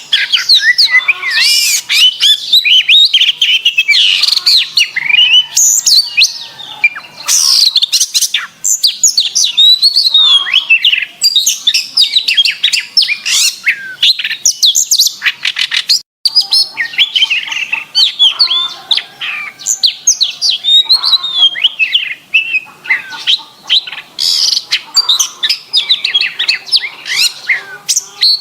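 Domestic canary singing continuously: fast, clear trills and warbling chirps with no pauses, apart from a split-second dropout a little past halfway.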